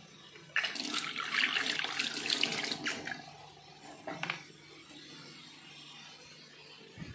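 Tap water running onto a chopping board in a stainless steel sink as it is rinsed, from about half a second in until about three seconds, then stopping. A short knock about four seconds in.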